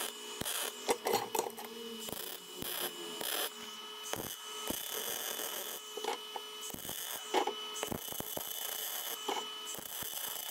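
MIG welder tack-welding a stack of steel billet layers and welding a bar handle onto the block, the arc running in several short bursts with brief gaps between.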